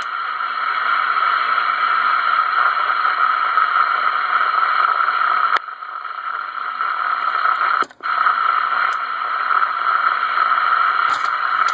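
Radio receiver hiss from a 2970 transceiver's speaker, tuned to the 11-metre band with no station on: a steady band-limited static. It dips briefly about five and a half seconds in and cuts out for a moment about eight seconds in.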